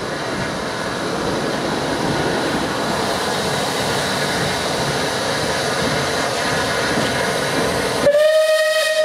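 Steam locomotive running tender-first, the steady noise of its wheels and motion growing slightly louder as it passes. About eight seconds in its whistle sounds, one held note that is still going at the end.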